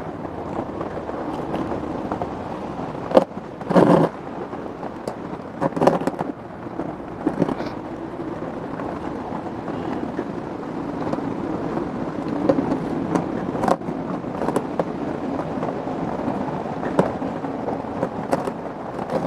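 Hands working potting soil around a succulent in a plant pot: scraping and rustling with a few sharp knocks, over steady background noise.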